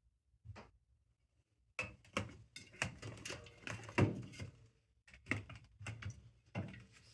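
Knocks, clatters and scrapes of containers and shelves being handled while a refrigerator is cleaned out: a single knock, then two busy spells of short hard knocks.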